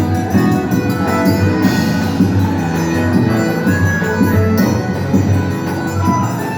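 Band music without vocals: an instrumental passage with a steady, regular beat.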